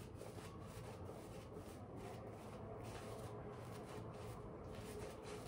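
Razor scraping through lathered stubble in a series of short, faint strokes, a couple of them each second.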